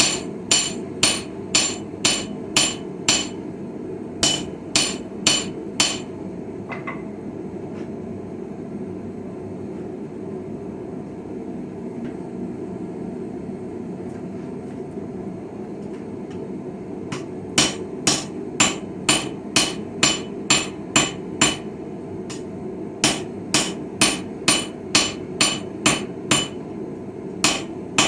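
Hand hammer striking a chisel being forged on a Viking-style anvil, about two and a half ringing blows a second, in several runs with a long pause of about ten seconds in the middle. A steady low rumble runs underneath.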